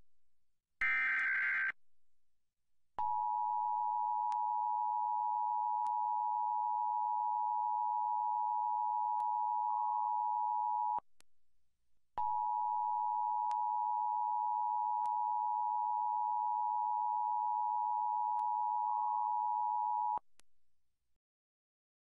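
Emergency Alert System test signal: the last short screechy digital data burst of the SAME header about a second in, then the EAS two-tone attention signal, a steady dual-tone drone (two close pitches sounded together) held for about eight seconds, broken off for a second, and resumed for another eight seconds.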